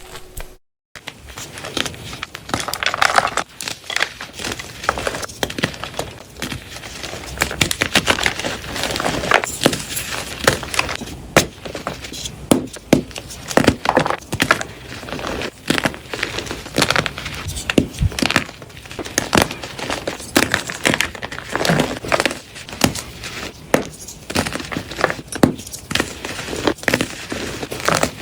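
Dyed gym chalk blocks being crushed and crumbled, a dense crunching and crackling with many sharp snaps, starting about a second in.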